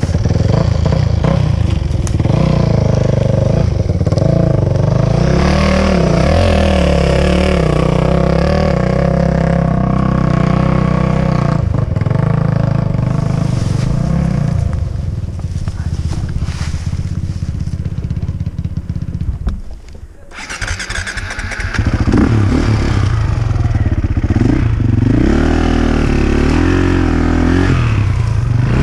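KTM enduro dirt bike engine running and revving on a steep forest slope, the revs rising and falling as it climbs. About twenty seconds in the engine sound falls away almost to nothing, then picks up again with wavering revs.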